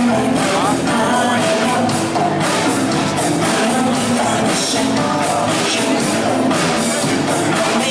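Band rehearsing a pop-rock song with a lead vocal singing over it.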